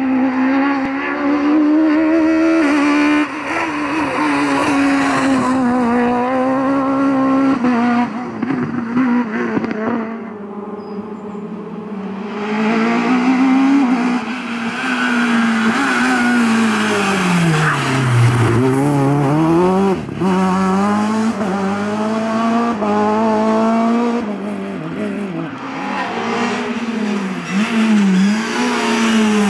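Small hatchback rally cars passing one after another at full attack: the engines rev hard, the pitch climbing through the gears, dropping sharply on braking and climbing again out of the corners. Tyres squeal in places.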